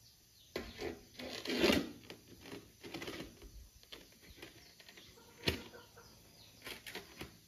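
Scattered knocks, taps and scrapes of hand work with tiles and mortar. A louder scraping rustle comes about a second and a half in, and a single sharp click about five and a half seconds in.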